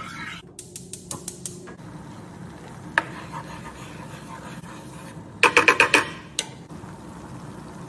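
Wooden spoon stirring onions and liquor simmering in a nonstick skillet. It scrapes and knocks against the pan, with a few light clicks early, a sharp knock about three seconds in, and a quick run of about six loud clacks just before six seconds.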